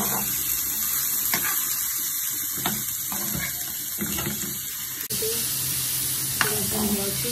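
Chicken pieces sizzling in hot oil in a frying pan, stirred with a metal spoon that scrapes and knocks against the pan several times. The sound breaks off for a moment about five seconds in.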